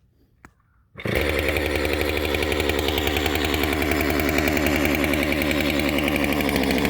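A gasoline chainsaw's two-stroke engine catches about a second in and then runs steadily.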